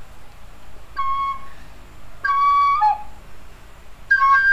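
Plastic descant recorder played as separate single notes: a short note about a second in, then the same pitch again just after two seconds, dipping briefly to a lower note as it ends. Near the end a short note leaps up to a higher one that is held.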